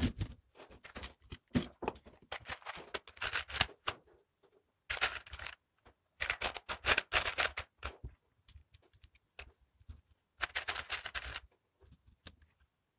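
LEGO Technic plastic parts clicking and rattling as they are handled and rummaged through in a plastic parts tray, in several short bursts of clatter.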